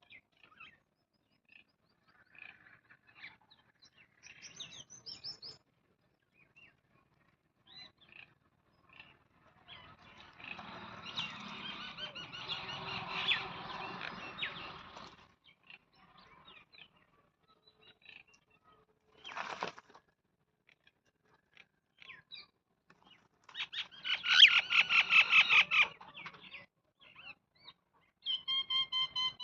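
Wild birds chirping and calling, with scattered short chirps and two louder bursts of chattering calls, one about ten seconds in and another some seconds later.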